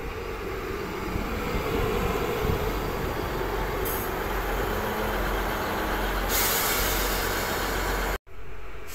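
Northern Class 158 diesel multiple unit running in alongside the platform, its engine and wheels rumbling. About six seconds in, a loud, steady hiss of air begins, typical of the train's air brakes. Near the end the sound cuts out suddenly for a moment.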